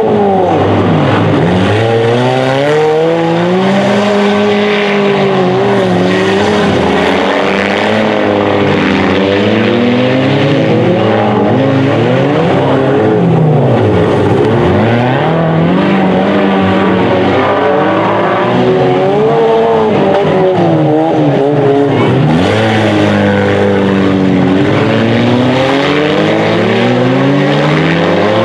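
Several stock front-wheel-drive cars racing on a dirt track, their engines overlapping and revving up and down as they accelerate and lift through the turns.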